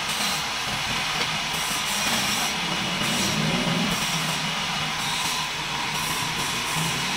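Wood lathe running while a hand chisel cuts into a spinning wooden chair-leg spindle: a steady scraping of the cut over the low hum of the machine.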